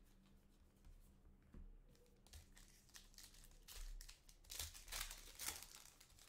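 Foil wrapper of a Panini Contenders basketball card pack crinkling and tearing as it is handled and ripped open, a dense run of crackles that grows loudest in the second half.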